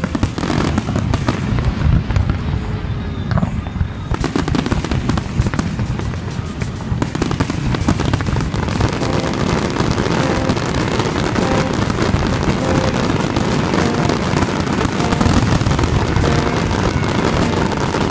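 Large aerial fireworks display: a continuous dense barrage of bangs and crackling shell bursts, growing thicker about four seconds in. Music plays faintly underneath.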